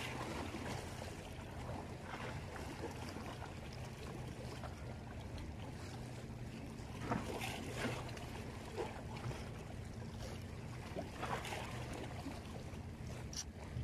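Seawater lapping and splashing against a small boat's hull, with occasional sharper splashes, over a steady low engine hum.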